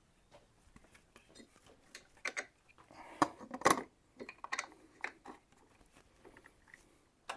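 Knife and sharpening jig being handled: irregular metal clicks, clinks and short scrapes, ending with a sharp click.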